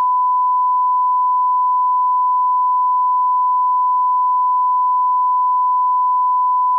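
Steady 1 kHz sine-wave test tone, one unbroken pitch at constant loudness: the reference tone that accompanies SMPTE colour bars.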